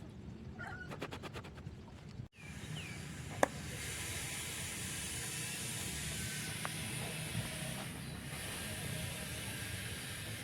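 A steady hiss starts a few seconds in and briefly drops away once before resuming. Faint bird chirps are heard before it.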